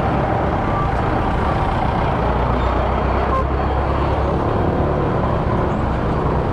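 Motor scooter ridden on the road: steady engine and road noise that holds level throughout.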